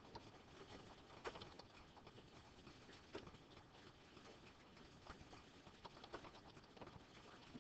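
Faint, irregular clicks of a computer keyboard as a sentence is typed, over near-silent room tone.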